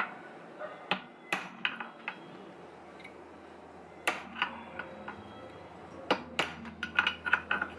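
Hammer striking a steel centre punch against the engine-mount bore of a Lambretta TV175 engine casing: about a dozen sharp metallic taps, each with a short ring, irregularly spaced and coming quicker near the end. Each punch raises a small crater of metal in the bore so that the loose engine mount becomes a tight knock-in fit again.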